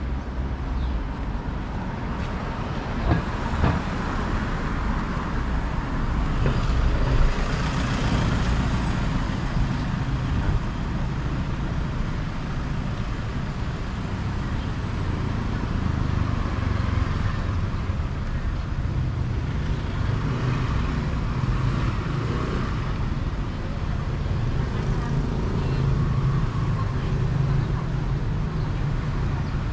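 Street traffic: a steady low rumble of engines and tyre noise, swelling a few times as vehicles pass.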